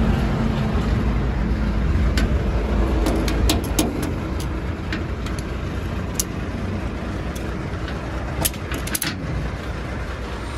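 Heavy truck diesel engine running nearby, a steady low rumble that eases off a few seconds in, with scattered light clicks and taps.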